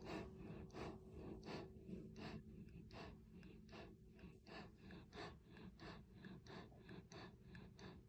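Wolfhound panting softly with its tongue out, a faint, even run of quick breaths at about three a second.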